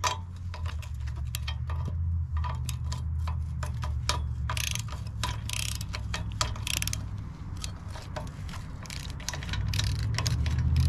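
Socket-wrench ratchet clicking in short runs as a 3/4 socket turns the lock nut on a trailer ball coupler's bolt, snugging it down a little at a time. A steady low hum runs underneath.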